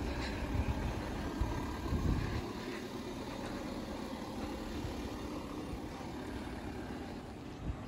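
Wind buffeting the microphone in irregular low rumbles for the first couple of seconds, over a steady outdoor background hum.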